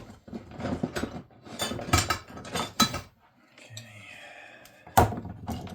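Metal clattering and knocking from tools and parts being handled, irregular through the first few seconds, then a faint steady hum and one sharp loud knock about five seconds in.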